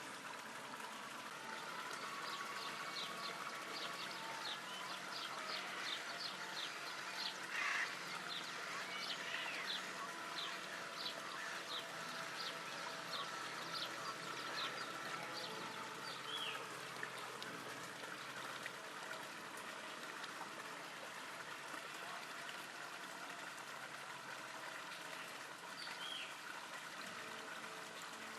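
Steady running water, with a series of short high chirps from small birds over the first half and twice more near the end.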